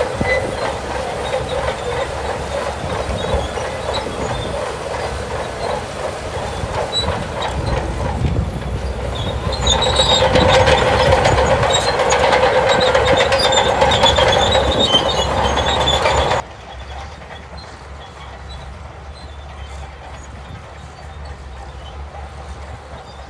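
Crawler bulldozer working: diesel engine running under a steady metallic clatter and squeal from the steel tracks. It grows louder about ten seconds in, then drops off suddenly about two-thirds of the way through to a quieter running noise.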